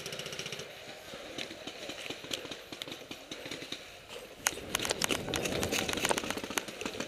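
Footsteps crunching and rustling through dry leaf litter as a player runs, with a quick burst of crackling as they drop in behind a bunker, louder from about halfway through.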